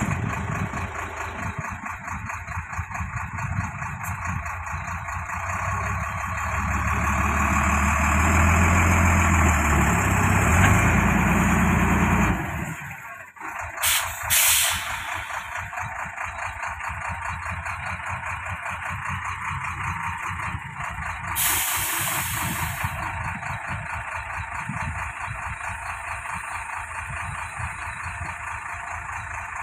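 Heavy truck's diesel engine revving hard for about ten seconds, then dropping suddenly back to a steady idle. Two short hisses of compressed air from the truck's air brakes come a moment later, about half a second apart, and a longer hiss follows some seven seconds after, with the engine idling on.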